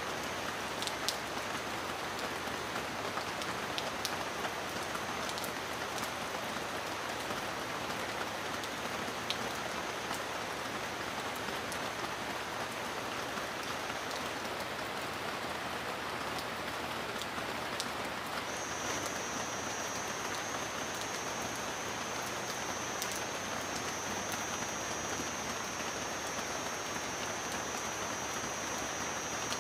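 Steady rain falling, an even hiss with scattered sharp drop ticks. A faint thin high tone drops out about halfway and comes back a few seconds later.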